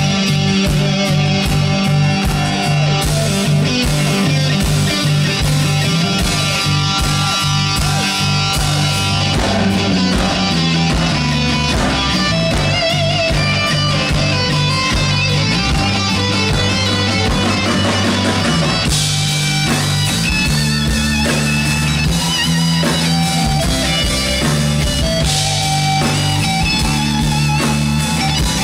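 Live rock band playing an instrumental passage, with electric guitar leading over drums and bass guitar.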